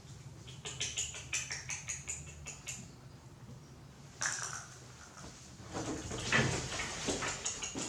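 Light rustling, scratching and clicking of small objects being handled. Quick clicks come in the first few seconds, a short scrape about four seconds in, and a longer spell of rustling near the end.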